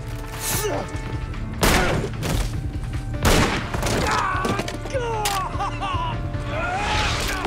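Dramatic film score under a fight: two sharp, loud impacts about a second and a half apart, then a man screaming in pain.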